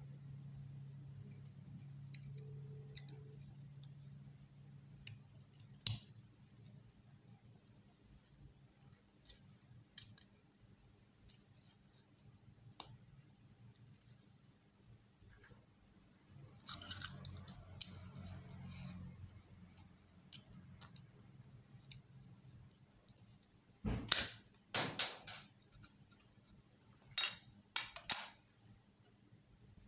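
Small clicks, snips and scratching of the plastic label being cut and peeled off an AA pencil battery, with a longer scratchy stretch about halfway through and a few louder sharp clicks near the end.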